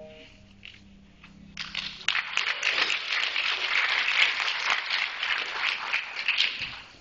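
Audience applauding: a few scattered claps, then full applause building about a second and a half in and fading near the end.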